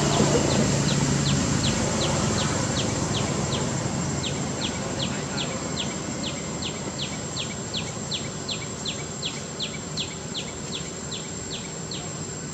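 Outdoor forest ambience: a small unseen creature calls in a long, regular series of short high notes, each dropping slightly in pitch, about three a second and slowly fading. A steady high-pitched whine runs beneath it.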